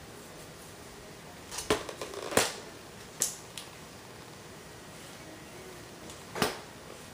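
A handful of short, sharp clicks and taps over a steady faint hiss: several close together about two seconds in, the loudest among them, and one more near the end.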